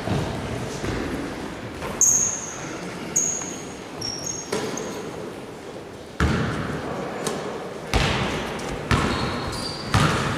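Basketballs bouncing on a gym floor: several irregular thuds about a second or so apart, with short high squeaks, typical of sneakers on a court, after some of them.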